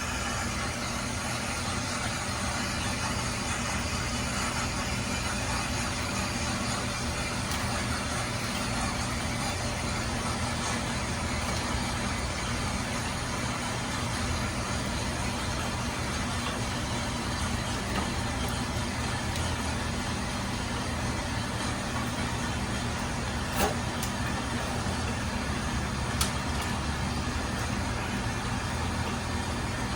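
Steady machinery drone: a low hum with an even rush over it, and two faint clicks near the end.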